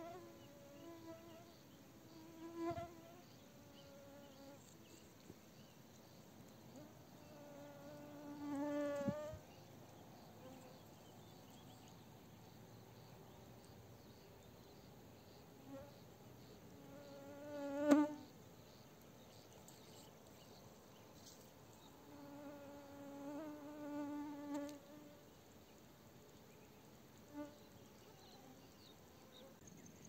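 A small flying insect buzzing close by, passing several times, each pass swelling and fading with a wavering pitch; the loudest pass comes a little past the middle.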